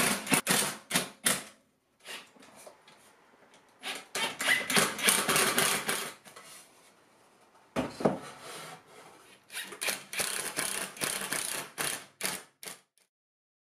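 Cordless drill-driver driving deck screws into red cedar: short trigger bursts at first, then two longer runs of a few seconds each as screws go in, with a sharp knock about eight seconds in. It stops shortly before the end.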